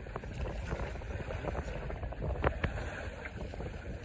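Steady wind and water noise aboard an Etchells keelboat sailing upwind, with wind buffeting the microphone and a few light knocks.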